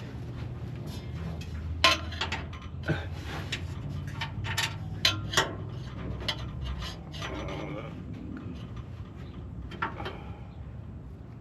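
Irregular sharp knocks and clicks, with a brief stretch of rubbing or scraping about seven seconds in, over a low steady hum: the sound of parts or tools being handled.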